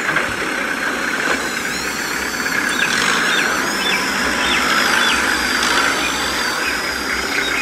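Tractor engine running steadily at idle, with a few short high falling chirps in the middle.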